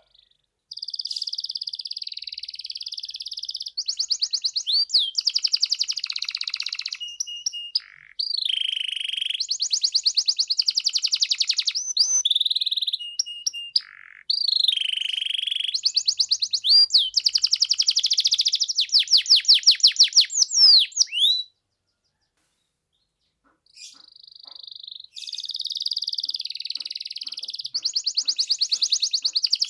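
Domestic canary singing in full, fluent 'gacor' song: long runs of rapid trills, rolls and repeated high notes. It breaks off for about two seconds a little after twenty seconds in, then starts again.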